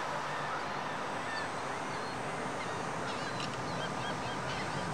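Steady distant rumble of a Falcon 9 rocket in ascent, with birds chirping over it in short repeated calls.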